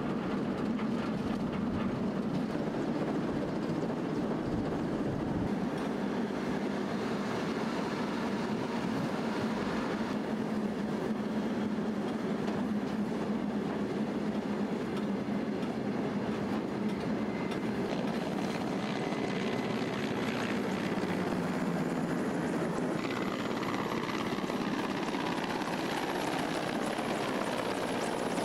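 Steady running noise of a moving train, mixed with helicopter rotor and engine noise. The helicopter sound grows stronger about five seconds before the end.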